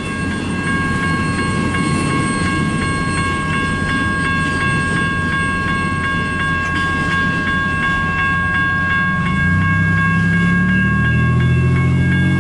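Railroad grade-crossing warning bell ringing with steady, evenly spaced strikes as the crossing gate rises after the train has cleared. From about nine seconds in, a road vehicle's engine starts up low underneath it.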